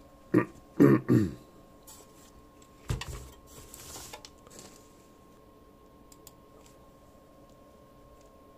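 Computer hardware being handled on a work surface: a single knock about three seconds in, then a couple of seconds of rustling and scraping, and a few faint clicks later on.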